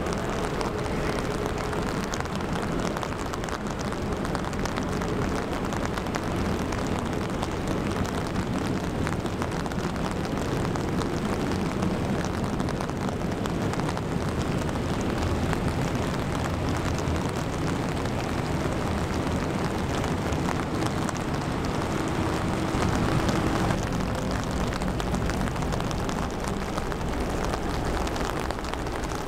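Rain hitting an umbrella steadily, over the low rumble of the laker Paul R. Tregurtha's engines as the ship passes close by.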